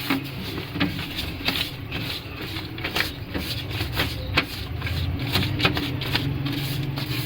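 Oil being spread over a paper-lined pan, rustling strokes on the paper about twice a second over a steady low hum.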